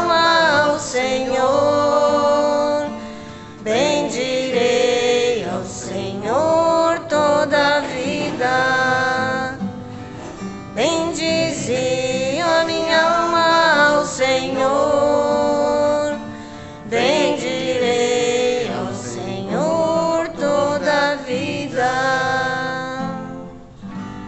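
Women's voices, joined by a man's, singing a psalm refrain in Portuguese to a strummed guitar, in long sung phrases separated by short breaths; the singing dies away shortly before the end.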